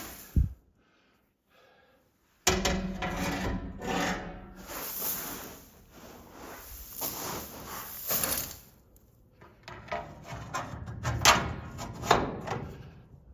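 A single thump, a short gap, then irregular scraping and rubbing with scattered knocks.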